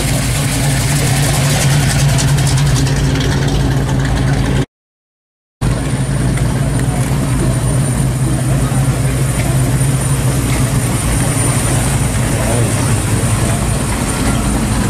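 Classic Chevrolet muscle car engines idling as they roll slowly past: first a Chevy Nova, then a 1971–72 Chevelle SS with its V8, a steady low engine note throughout. The sound cuts out completely for about a second near five seconds in, where the two drive-bys meet.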